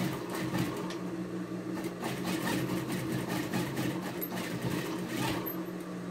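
Industrial sewing machine stitching through a thick seam of fabric and quilt batting: a steady motor hum under a quick run of needle strokes.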